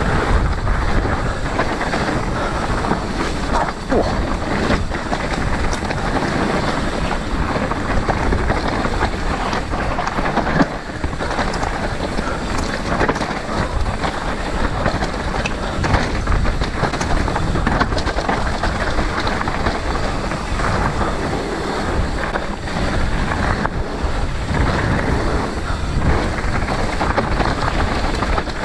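Strong wind buffeting the microphone over the rumble and clatter of a mountain bike riding a rough trail, with frequent small knocks and rattles.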